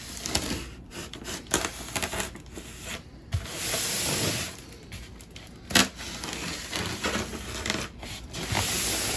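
Statue packaging being handled and opened: foam and cardboard rubbing and scraping, with scattered knocks and two longer noisy tearing stretches of about a second each, one near the middle and one at the end.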